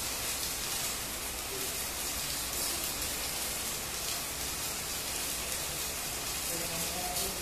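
Electric welding arc crackling steadily as a bead is run on steel plate.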